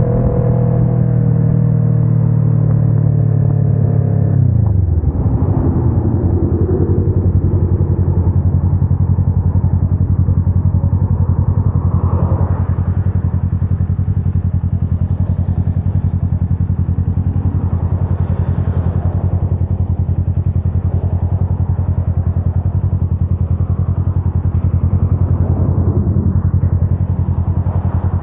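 Motorcycle engine heard from the rider's seat: its note falls about four seconds in as the bike slows to a stop, then it idles steadily.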